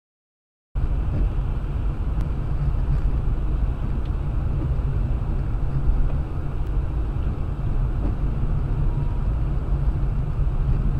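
Steady low rumble of a moving car's engine and tyres heard from inside the cabin through a dashcam microphone, starting abruptly under a second in.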